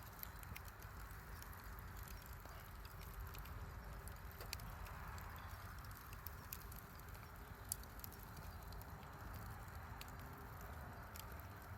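Wood bonfire crackling: scattered small snaps and pops at irregular intervals over a steady hiss and a low rumble.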